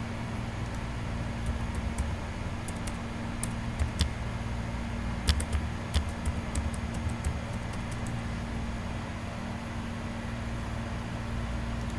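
A scattering of computer keyboard keystrokes and mouse clicks over the first seven seconds or so, while a password is typed in. A steady low hum runs under them throughout.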